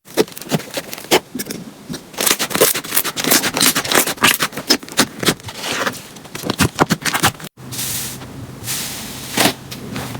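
Slime being squeezed and poked by hand, giving a dense run of sharp crackling clicks and pops. The sound cuts out briefly about three quarters of the way through and resumes over a low steady hum.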